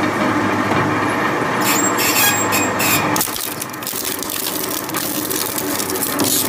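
Twin-shaft shredder running, its interlocking hook blades gripping and breaking up a wooden rod, with a steady machine hum under dense cracking and splintering from about a second and a half in.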